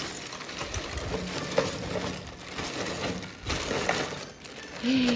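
Loose plastic LEGO bricks shifting and clicking against each other inside a clear plastic bag as the bag is handled and lifted, with crinkling of the bag. A short vocal exclamation starts near the end.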